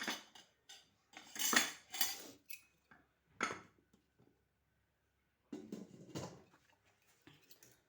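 Metal cooking pots and a lid being handled: a sharp knock, then several separate bursts of clinking and clattering, with a few light ticks near the end.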